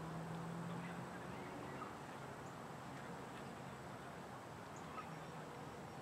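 Faint steady outdoor background noise, with a low steady hum that stops about two seconds in.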